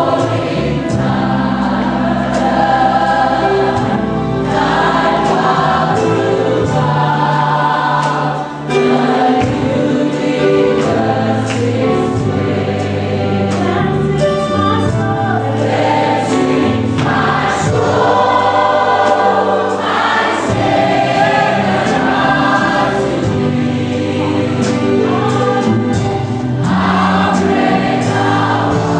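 Congregational worship music: a choir singing a gospel song over a band with bass and a steady beat.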